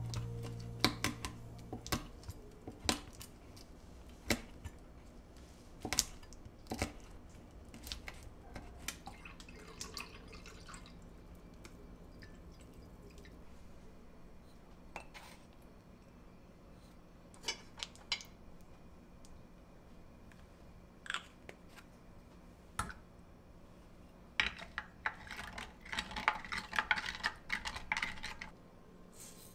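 Kitchen prep sounds: a knife knocking now and then on a wooden cutting board, ingredients spooned and poured into a glass measuring jug, then a wooden spoon stirring soy-sauce marinade in the glass jug. The stirring makes a quick run of clinks near the end.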